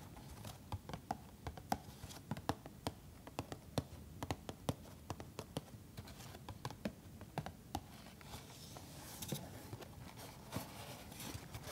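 Long fingernails tapping on a cardboard box of sanitary pads, with many irregular sharp clicks. In the last few seconds this turns to scratching and rubbing on the cardboard.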